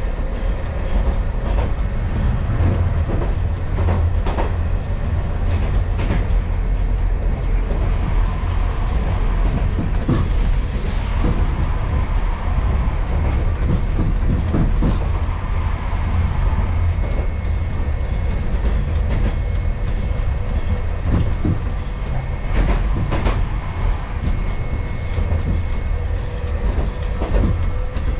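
Hankai Tramway streetcar running along the track, heard from inside the car: a steady low rumble with scattered clicks of the wheels over rail joints.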